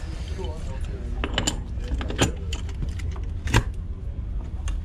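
Clicks and knocks of a cap being fitted and turned onto a yacht's deck diesel-fill connection, a handful of separate sharp strikes with the loudest about three and a half seconds in, over a steady low rumble.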